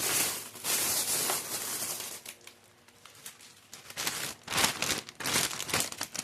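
Plastic packaging crumpled and crinkled by hand: a long rustle for about the first two seconds, quieter handling in the middle, then a run of sharp crackles near the end.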